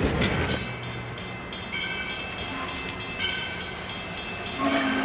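Passenger coaches clattering over rail joints for the first half-second, then a quieter stretch with the train in the distance. Near the end, the 2-8-2 Mikado steam locomotive No. 40 starts a steady long blast on its Texas & Pacific three-chime whistle.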